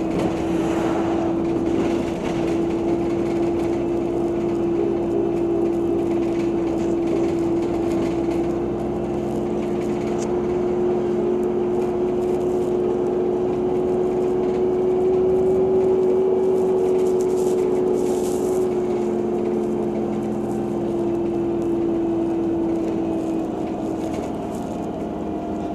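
Heuliez GX 137L city bus under way, heard from inside: a steady drivetrain whine with engine and road noise, rising slightly in pitch toward the middle and easing back down later.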